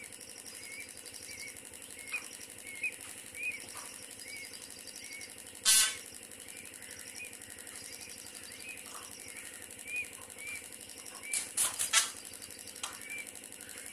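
Peachick peeping over and over, short rising-and-falling chirps about twice a second. The peahen gives a few loud, harsh sounds, one about six seconds in and several close together near the end.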